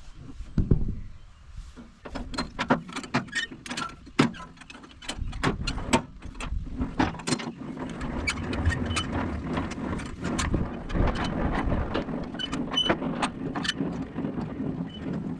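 Many sharp metal clanks and knocks, typical of a trailer being hitched to a truck, with a steady low engine rumble coming in under them about halfway through.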